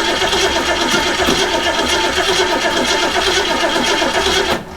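1967 Ford Mustang engine being cranked over by its starter in a steady rhythm without catching, stopping abruptly near the end. This is a no-start, which the mechanic puts down to the automatic choke being stuck on.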